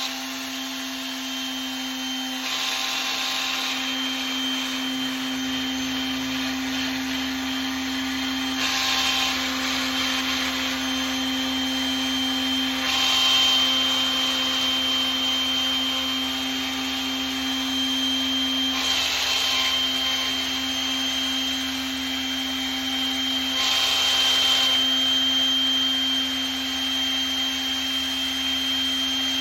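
Electric sander running steadily, with a hum and a high whine, while it sands the brass putter head. A louder sanding hiss swells five times for a second or two each as the paper is pressed against the metal.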